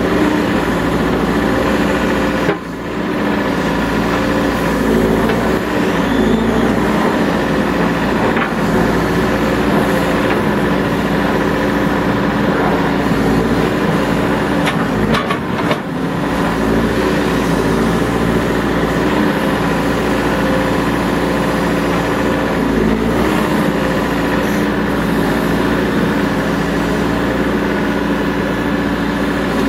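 Diesel engine of a 2011 Caterpillar 420E IT backhoe loader running steadily as the machine is operated, its pitch wavering slightly. The sound drops briefly twice, once about two and a half seconds in and again near the middle.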